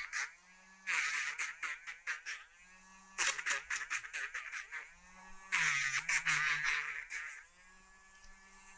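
Battery rotary nail grinder with a sanding drum, whining in three bursts of one to two seconds as it is pressed to a dog's toenails and lifted away. A low hum runs between the bursts.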